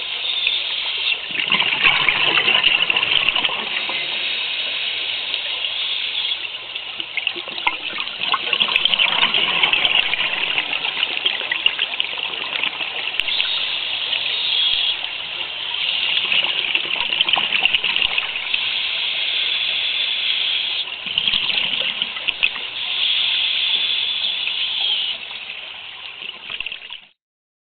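Scuba diver breathing through a regulator underwater: exhaled bubbles gush in repeated bursts of a second or two. The sound cuts off suddenly near the end.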